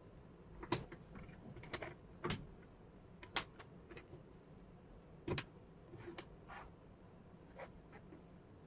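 Wooden jigsaw puzzle pieces clicking and tapping against the tabletop and each other as they are picked up and set down: a dozen or so light, irregular clicks, a few of them sharper.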